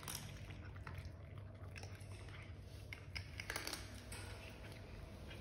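Cats crunching dry kibble, faint irregular crunches and clicks over a low steady hum.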